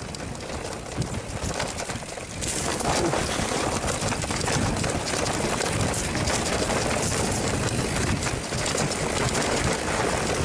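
Mountain bike riding fast down a rough, rocky trail: tyres rumbling over stones and dirt and the bike rattling over the bumps, getting louder about two and a half seconds in.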